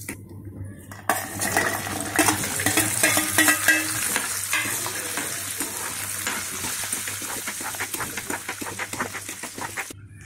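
Peeled garlic cloves frying in hot oil in a wok-style pan, sizzling and crackling loudly while a metal spoon stirs and scrapes them. The sizzle starts suddenly about a second in and cuts off abruptly near the end.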